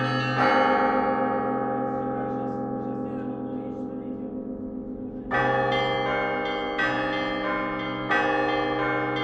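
Bronze church bells of a Russian Orthodox belfry being rung: a strike just after the start, then the bells ring out and fade for about five seconds, a big bell's deep hum under the higher bells. Strikes resume about halfway through, roughly one every second and a half.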